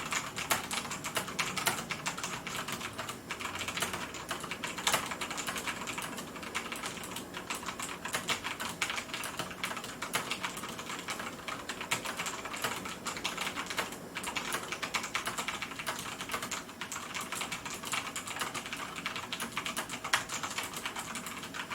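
Continuous typing on an ikbc Table E401 tenkeyless mechanical keyboard with Cherry MX Brown switches, a steady run of many fast key clicks that stops at the end.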